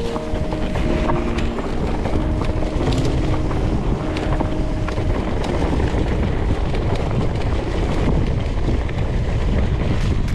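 Heavy wind buffeting the microphone, with a pop song's notes playing underneath for the first half.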